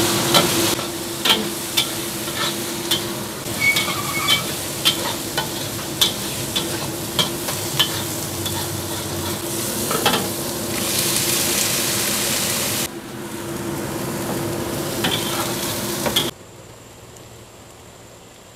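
Pork and carrot stir-frying in a wok with a steady sizzle, while a metal spatula scrapes and knocks against the pan about twice a second. The sizzle swells for a couple of seconds past the middle. About three-quarters of the way in, it cuts off abruptly and only a faint steady hum is left.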